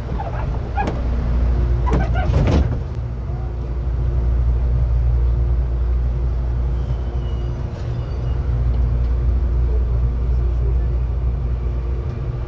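Electric commuter train standing at a platform, heard from inside the car: a steady low hum from its equipment, with brief voices and a short noise burst in the first couple of seconds. Near the end a rising whine sets in as the traction motors start the train moving.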